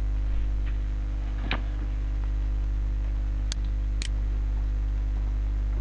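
Two computer mouse clicks about half a second apart, a little past the middle, over a steady electrical mains hum on the recording.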